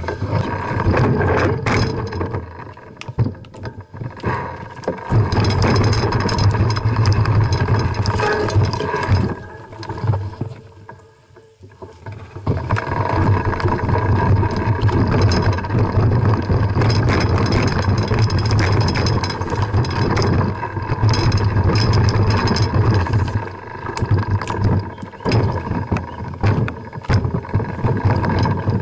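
Mountain bike ridden over a rocky dirt singletrack: a steady low rumble full of rattles and knocks. About ten seconds in it goes quiet for a second or two, then picks up again.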